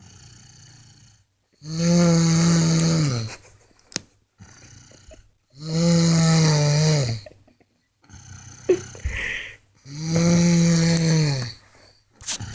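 A person snoring loudly in sleep: three long, droning snores about four seconds apart, each falling in pitch as it ends, with quieter breathing between them.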